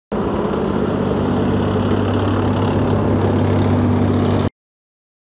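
Heavy engine of an armoured military vehicle running steadily as it drives, a low even engine note that grows slightly louder and then cuts off suddenly.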